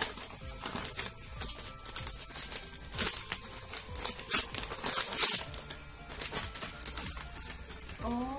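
Gift-wrapping paper crinkling and tearing in irregular rustles as a present is unwrapped by hand, loudest about halfway through, with background music.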